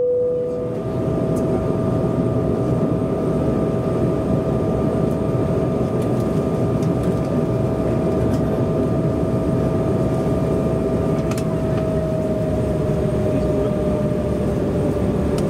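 Cabin noise of an Embraer E190 rolling on the ground: a steady turbofan whine over a low rumble, its pitch easing down slightly about three-quarters of the way through.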